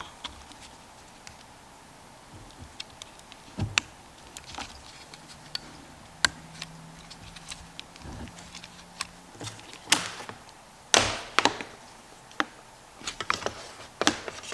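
Scattered clicks, taps and knocks of a plastic plug and connector being handled and fitted as a homemade test power cord is connected to a used dryer motor, with the sharpest knocks about ten and eleven seconds in.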